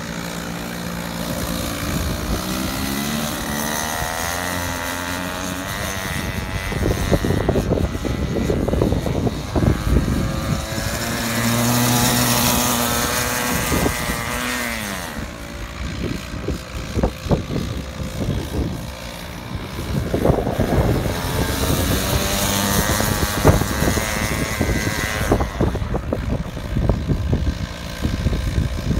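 Go-kart engine running at changing speed as the kart drifts in circles, its pitch rising and falling, held high and steady for a few seconds near the middle.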